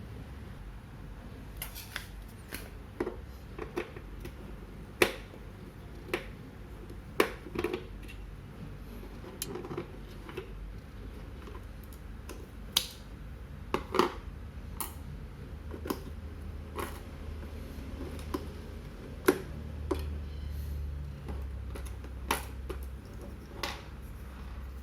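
Irregular clicks and knocks of hard objects being handled during the unboxing of a robot vacuum cleaner, a few of them sharp and loud, over a steady low hum.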